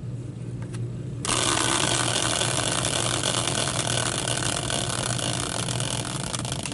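Caster wheel, bearing team logos and mounted in a metal caster bracket, whirring on its axle after a hand spin. The whir starts abruptly about a second in and holds steady, slowly fading.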